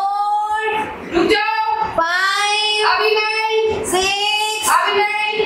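A child's voice singing a string of long, drawn-out notes at a steady pitch, with short breaks between them.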